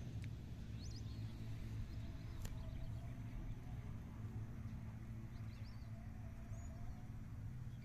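A few short, faint bird calls over a steady low rumble, with a single light tick about two and a half seconds in.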